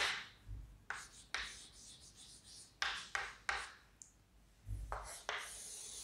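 Chalk writing on a chalkboard: a series of short, irregular scratchy strokes as letters are written, then one longer, steady stroke near the end as a line is drawn under the heading.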